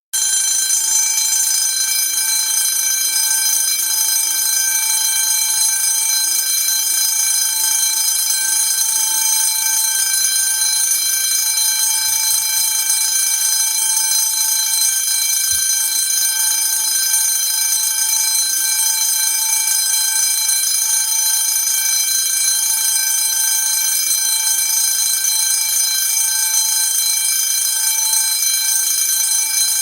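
10-inch 24 V DC vibrating fire alarm bell ringing continuously at a steady level, its gong giving a set of bright overtones above a strong tone just under 1 kHz.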